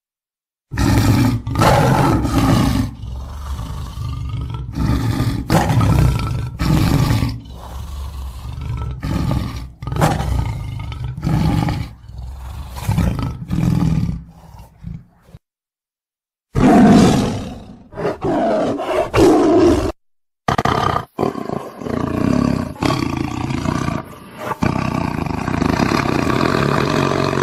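Tiger roars and growls from a sound-effect track laid over the picture. The loud roars come one after another, each lasting about a second, with abrupt gaps of dead silence a little past halfway and again about three-quarters through.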